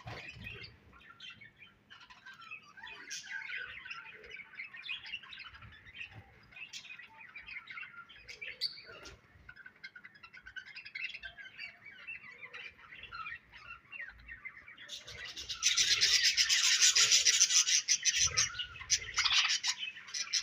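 A group of budgerigars chirping and chattering in quick overlapping calls. About three-quarters of the way in the chatter turns much louder and denser for several seconds.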